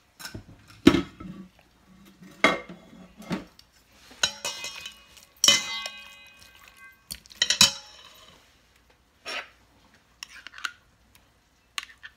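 Chopsticks and a metal spoon clinking and scraping against a stainless steel mixing bowl while raw duck meat is stirred. Several sharp knocks come at uneven intervals, the louder ones leaving the bowl ringing for a moment.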